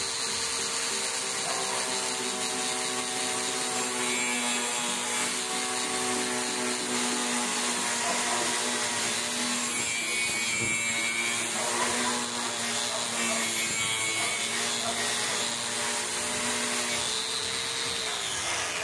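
Bosch GWS 060 angle grinder running a wire cup brush against rusty steel angle iron to strip the surface rust: a steady motor whine with the scrubbing of the wires. Near the end its pitch falls as the motor winds down.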